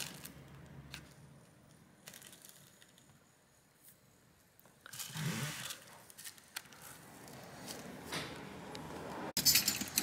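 Faint handling noises on a workbench: light rustling and a few small clicks, a short scuffing sound about halfway through, and a run of sharper, louder clicks near the end as small metal tools are picked up.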